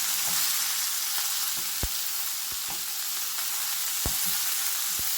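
Ridge gourd peels sautéing in hot oil in a pan: a steady sizzle with a few light ticks scattered through it.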